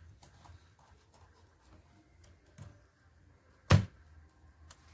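Faint handling sounds with light clicks and rustles, and one sharp knock about three and a half seconds in, the loudest sound.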